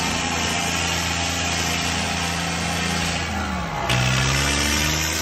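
Two diesel tractors, a John Deere 5050 D and a New Holland 3630, running flat out under full load as they pull against each other in a tug-of-war. A little past three seconds in, one engine's pitch sags as it lugs down, then about a second later the sound jumps louder and the pitch climbs again.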